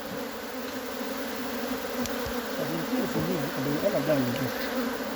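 Many honeybees buzzing around an opened hive as the colony is moved into a new hive, a steady hum throughout.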